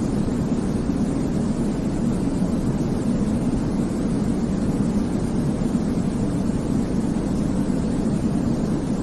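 Continuous sleep white noise: a steady, low-pitched rushing hiss that stays even.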